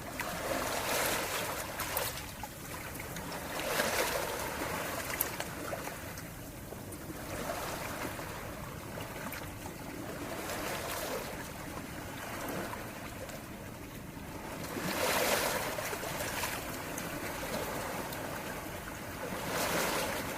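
Gentle sea waves washing onto a shore, a steady hiss of water that swells and falls back every few seconds, with stronger waves about four seconds in and again about fifteen seconds in.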